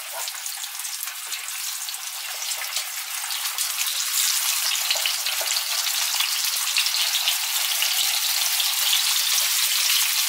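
Lamb rib chops frying in hot oil in a frying pan: a dense sizzling hiss full of fine crackles and spits. It grows louder over the first few seconds as more chops go into the oil, then holds steady.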